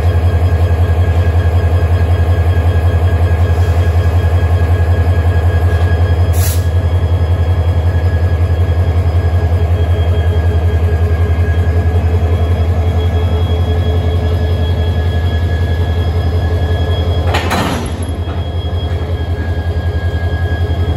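Diesel engine of a KTM Class 25 locomotive running steadily: a deep pulsing hum with steady whining tones above it. A sharp click comes about six seconds in, and a short loud burst of noise comes near the end.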